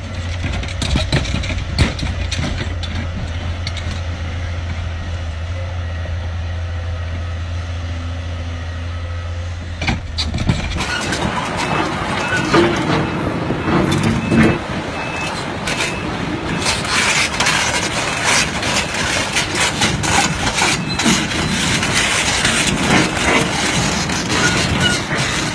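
A heavy vehicle's engine running with a steady low hum. About eleven seconds in it gives way abruptly to louder, noisy clattering full of sharp knocks and bangs.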